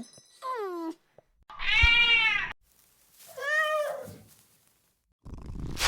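Cat meowing three times: a short falling meow, then a long, loud one, then a softer one. A loud rushing noise starts near the end.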